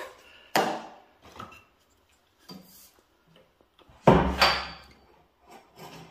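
Wooden blocks knocking and clattering as a length of timber is wedged under a generator's steel frame, with a few separate knocks; the loudest, heaviest knock comes about four seconds in.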